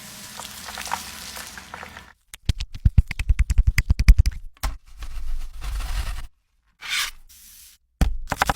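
Cooking utensils at work: scraping, then two runs of rapid, regular sharp strokes, about ten a second, with abrupt breaks between the sections.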